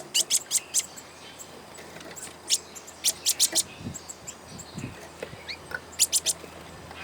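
A bird calling in bursts of quick, sharp, high chirps, several a second. One burst comes at the start, another about three seconds in and a short one near the end, with a few fainter calls in between.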